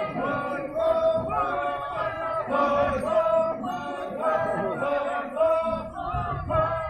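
Group of male voices chanting together in unison, singing short melodic phrases over and over: a traditional Ao Naga harvest work chant.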